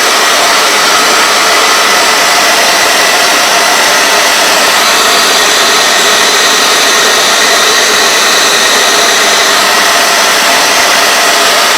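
Handheld blow dryer running steadily at close range: a loud, even rushing of air with a faint motor whine.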